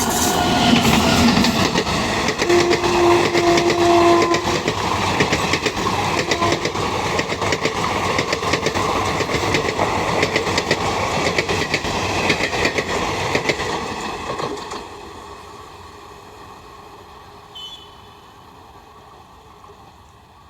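Train passing close at speed: the locomotive's horn sounds at the start and again for about two seconds early on. Then comes the fast clatter of wheels over rail joints, which fades away about 15 seconds in.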